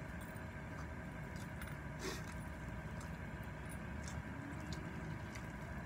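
A person chewing a mouthful of spicy instant noodles, with faint scattered wet mouth clicks, one a little stronger about two seconds in, over a steady low background hum.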